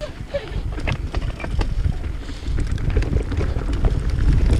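Wind buffeting the microphone and tyres rolling over rough dirt and rock as a mountain bike gets going downhill, with scattered clicks and rattles from the bike. It starts suddenly and gets louder about halfway through as speed builds.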